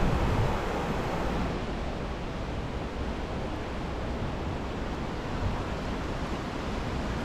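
Steady rushing of a fast mountain river running as white water over rocks, a continuous even wash of noise.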